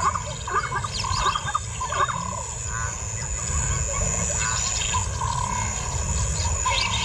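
Lions growling low as the male mounts a lioness, with short chirps of birds above.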